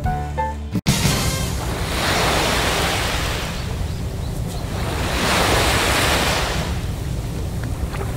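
Small waves washing onto a sandy shore, the surge swelling and fading about every three seconds, with wind on the microphone. Background music cuts off abruptly about a second in.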